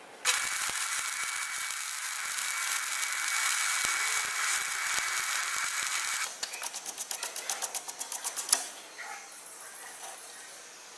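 Electric arc welding: a steady crackling sizzle of the arc for about six seconds, then about two seconds of quick crackling pulses ending in a sharp snap, then quieter workshop noise.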